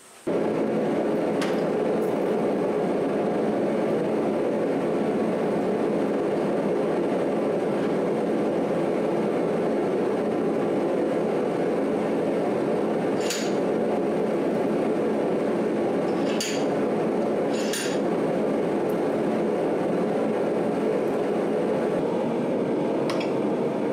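Blacksmith's forge running with a loud, steady rush while the workpiece heats, with a few sharp metal clinks of tongs or tools against the forge.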